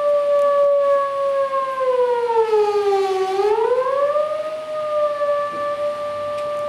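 Electronic test tone from the Tone Gen Pro iPhone app, played through the speaker of a Rubens tube, setting up standing waves in the gas that shape the flames. The tone holds a steady mid pitch, then about two seconds in glides smoothly down, bottoms out about three seconds in, and rises back to its first pitch, where it holds steady.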